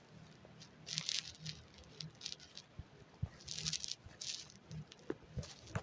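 Faint handling noise: a few short rustles and scattered light taps.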